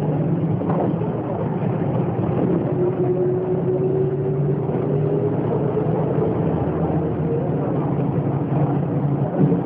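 Volkswagen 17.230 EOD bus's diesel engine pulling under load, its pitch rising slowly through the middle as the bus gathers speed in gear.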